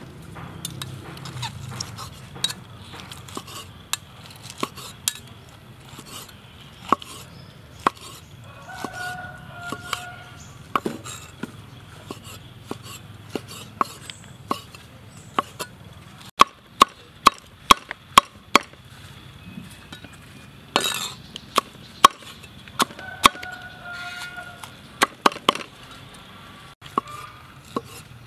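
Meat cleaver slicing cooked beef tongue on a wooden chopping board: sharp, irregular knocks of the blade striking the board, with a quick run of strokes about halfway through.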